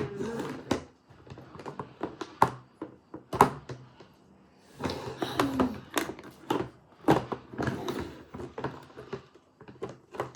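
Clicks, taps and knocks of small plastic toy parts and a container being handled and turned over, with a brief rustle of handling about halfway through.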